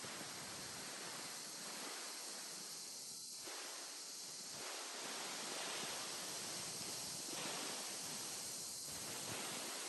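Faint rustling of footsteps moving through dry pampas grass, over a steady hiss.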